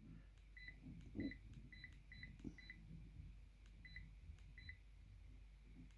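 Sharp GX12 mobile phone's key tones: seven short, faint, identical high beeps at uneven intervals as its buttons are pressed to move through the settings menu.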